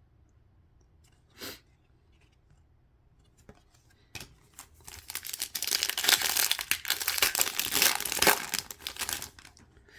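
A hockey card pack wrapper being torn open and crinkled by hand, starting about four seconds in and going on for about five seconds, after a short rustle near the start.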